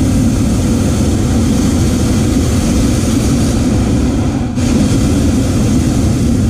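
Hot air balloon's propane burner firing, a loud steady rush of flame heard from inside the basket; it dips briefly about four and a half seconds in.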